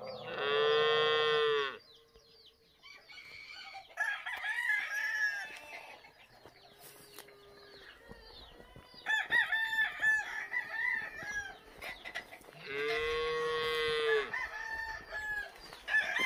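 A rooster crows twice, one long call just after the start and another about two-thirds of the way through. Short clucks and chirps come in between.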